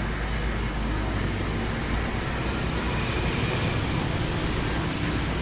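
Fuel-injected engine running at a steady idle, a low even rumble, during a tune-up.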